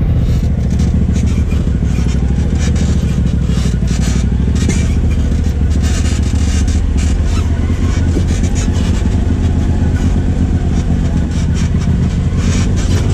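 Polaris RZR Turbo S side-by-side's turbocharged twin-cylinder engine running under way, heard from inside the cab, with frequent knocks and rattles from the chassis over the rutted dirt trail.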